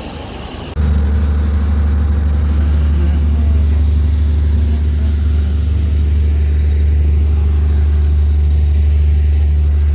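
A machine's motor or engine running loud and steady, a deep even hum with a faint high whine above it, coming in abruptly about a second in.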